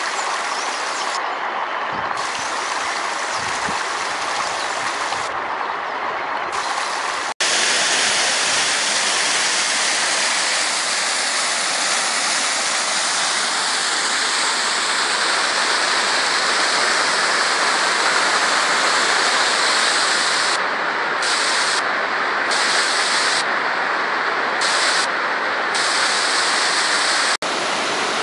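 Steady rushing of flowing water, like a mountain stream or waterfall, broken twice by a split-second dropout; after the first, about seven seconds in, it comes back a little louder.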